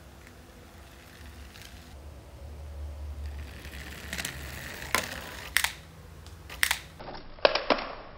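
Small plastic toy skip-loader truck being handled and moved, giving about six sharp plastic clicks and knocks in the second half over a faint low rumble.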